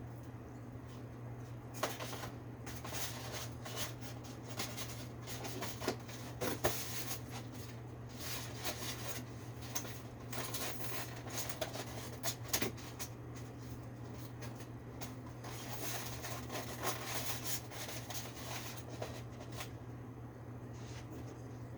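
Hand work on a window air-conditioner unit's parts: irregular rustling, scraping and light clicks over a steady low hum, busiest in the middle and easing off near the end.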